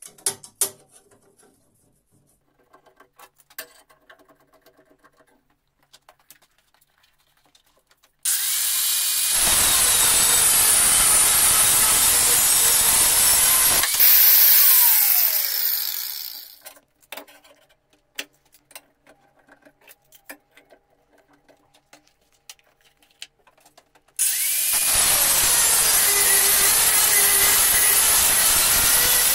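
Metal clamps clicking and knocking as a knife blank is clamped down. Then an angle grinder cuts along the outline of a stainless steel knife blank, loud and steady. About halfway through it switches off and winds down, and it starts cutting again about two-thirds in.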